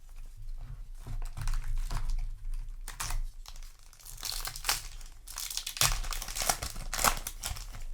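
Foil booster pack wrapper crinkling as it is handled and torn open, in irregular rustling bursts that are loudest about halfway through and again near the end.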